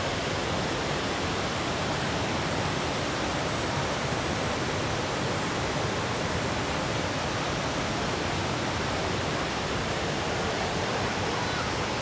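Waterfall on the Amnicon River, a steady even rush of falling water.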